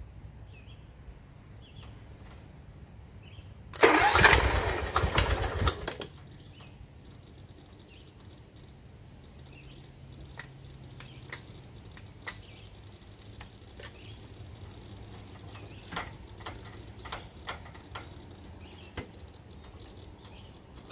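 Starter cranking the zero-turn mower's swapped-in Cub Cadet engine for about two seconds, then stopping without the engine running on, on a battery the owner says is half dead. A few light clicks follow near the end.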